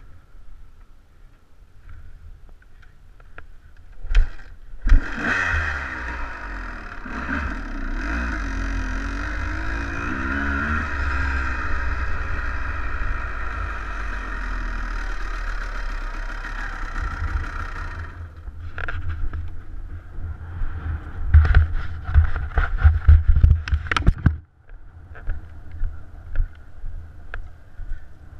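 Dirt bike engine running loud for about thirteen seconds with the revs rising and falling, then cutting off suddenly. It is followed by several seconds of irregular knocks and rattles.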